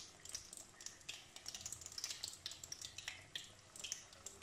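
Gram-flour-battered potato slices deep-frying in hot oil in an iron wok, the oil crackling in quick, irregular little snaps.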